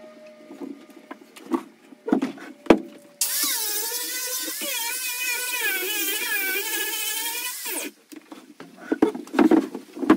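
Makita angle grinder grinding down the foot of a lodgepole pine log table base to level it. It starts suddenly a few seconds in, runs for about four and a half seconds with its pitch wavering as it bears on the wood, then stops. Scattered knocks and clunks of the wood being handled come before and after it.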